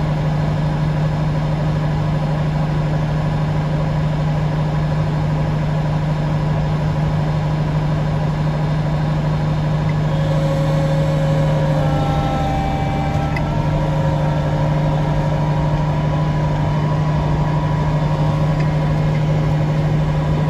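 Large engine running steadily at a constant speed, giving a deep, even hum. Faint higher tones come and go about halfway through.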